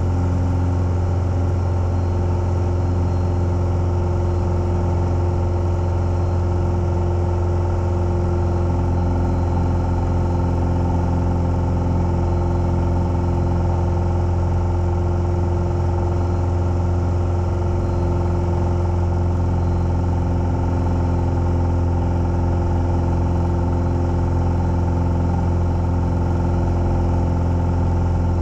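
Single-engine light aircraft's piston engine and propeller running steadily at power, heard from inside the cabin, as the aeroplane climbs away from a practice forced landing. The drone holds an even pitch and level throughout.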